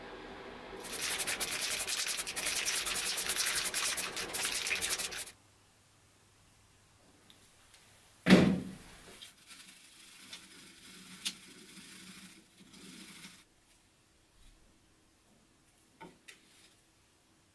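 Rasping of sanding on a steel part for about four and a half seconds, then one loud clunk of a steel bracket put down on the workbench, followed by light handling clicks.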